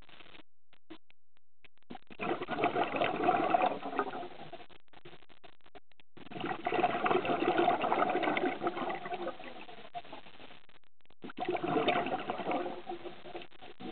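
Scuba diver's exhaled air bubbling out of the regulator, three exhalations of a few seconds each with quiet gaps between breaths.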